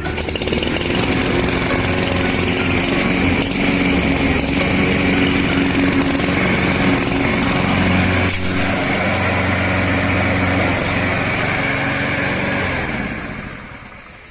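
Sendai SDM self-propelled lawn mower's engine running steadily, dying away near the end.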